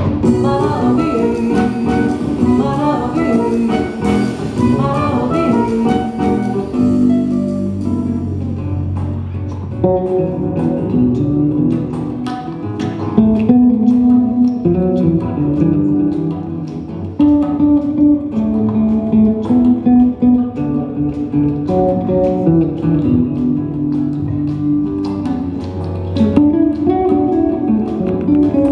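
Live small-band music in a Colombian jazz style: acoustic guitar, soprano saxophone, electric bass and hand percussion. Quick runs of notes fill the first several seconds. From about ten seconds in, a woman sings over the band.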